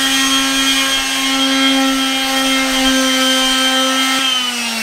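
Electric sander running at a steady pitch on Baltic birch plywood cabinet dividers, then switched off about four seconds in, its whine falling as the motor spins down.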